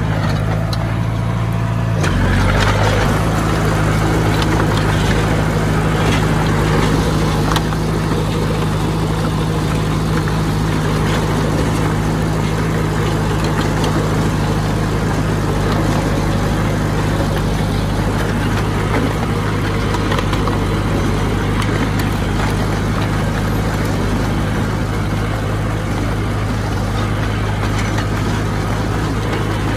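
Diesel engine of a heavy earthmoving machine running steadily; its note changes about two seconds in and then holds.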